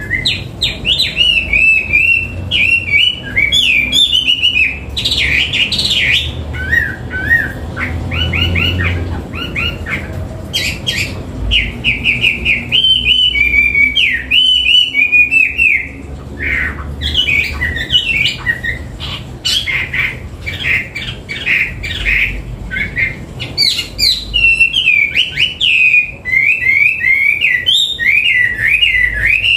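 A hwamei singing a long, loud, varied song of rapid whistled phrases, trills and up-and-down sweeps, with hardly a pause.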